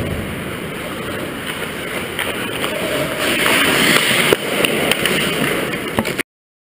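Ice hockey play at close range: skates carving and scraping the ice, with a harder hissing scrape of ice spray about three seconds in, and a few sharp clacks of sticks and puck over the rink's steady noise. The sound cuts off abruptly near the end.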